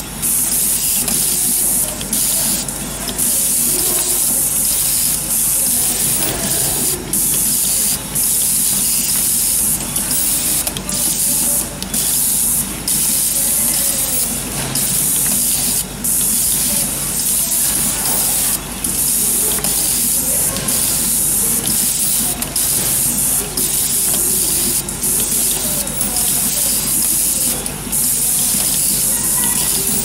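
Twin-head rotary coax wire stripping machine running: a loud, steady hiss with a low hum underneath, briefly dropping out every second or two as the operator strips wire after wire.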